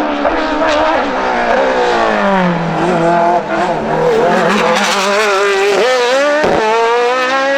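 Race car engine under hard throttle, its note dropping as the car slows early on, then climbing steeply twice, cut by a quick gearshift between the two climbs.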